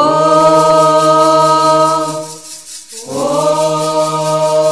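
Candomblé chant for Xangô: voices sing long held notes in two phrases, with a short break about two and a half seconds in, over a rattle shaken in a fast, even pulse.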